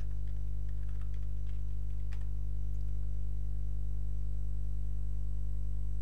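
Steady electrical mains hum picked up by the recording microphone, low and unchanging, with a stack of overtones. A few faint clicks come in the first two seconds.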